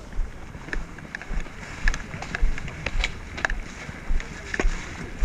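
Footsteps crunching through dry fallen leaves on a forest trail at a steady walking pace, about two steps a second, with the crackle of leaves between the thuds.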